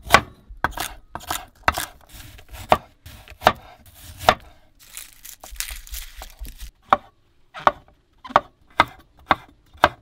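Chef's knife chopping carrots on a wooden cutting board: separate sharp knocks of the blade hitting the board, about one or two a second. About halfway through there is a short stretch of papery rustling as a head of garlic is broken apart.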